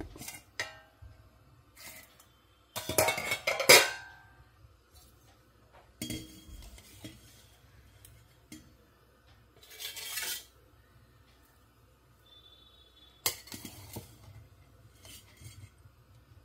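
Stainless-steel cookware clattering: a steel plate lid is lifted off the pot and set down with a loud clatter about three seconds in, then a steel serving spoon scrapes and clinks against the pan while scooping cooked rice onto a steel plate.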